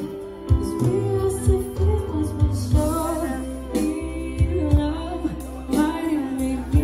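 Live band music: a woman singing a melody over acoustic guitar and a steady low beat.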